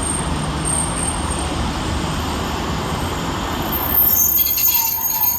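Diesel multiple-unit train running with a steady low engine hum and rumble. About four seconds in, a high-pitched metallic squeal starts on top of it.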